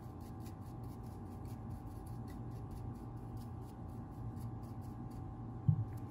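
Faint scratching of a small paintbrush's bristles working oil over a Glock pistol barrel, over a steady room hum. Near the end, one soft thump as the barrel is set down on the towel-covered bench.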